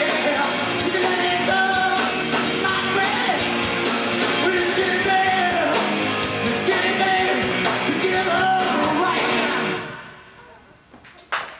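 Live rock band playing with a male lead singer. The song ends about ten seconds in, and after a brief lull the audience starts clapping near the end.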